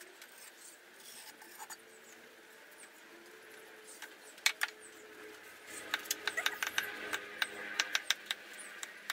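Light taps and clicks of hand tools on a sand-casting mould: the wooden flask is tapped, then a metal rod set in the pattern is rapped to loosen it from the sand. A couple of sharp taps come about four and a half seconds in, and a quick, irregular run of taps starts about a second later.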